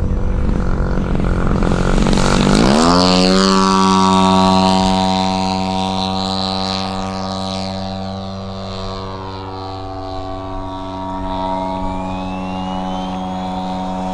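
A large RC plane's DLE 100 twin-cylinder 100cc gasoline engine and propeller rumble through the takeoff run. About three seconds in, the pitch climbs quickly as it opens to full throttle. It then holds a steady high drone as the plane climbs out.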